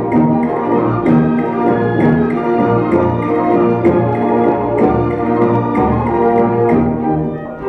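Orchestral ballet music: held, full chords with sharp percussive accents struck every so often.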